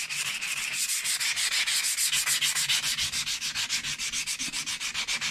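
320-grit sandpaper rubbed by hand in rapid, even back-and-forth strokes along a belt grinder's metal platen, smoothing it.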